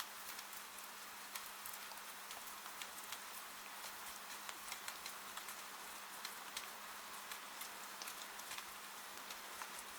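Steady rain: an even hiss of falling rain with many single drops ticking sharply at irregular moments. A faint low steady hum lies underneath.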